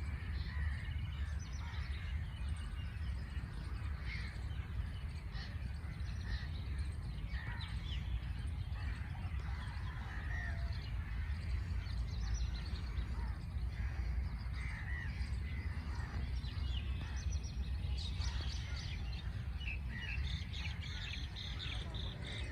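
Several birds chirping and calling in short scattered notes, over a steady low background rumble.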